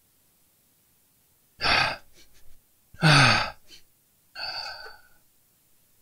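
A man gasps sharply, then lets out a voiced sigh that falls in pitch, followed by a shorter breathy exhale: startled reactions.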